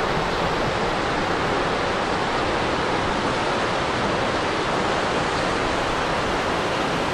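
Steady, even rush of wind noise on the microphone of a camera on a moving bicycle, riding into strong wind.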